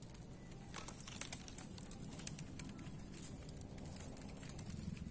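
Dry palm fronds rustling and crackling with scattered small clicks as they are handled and shifted.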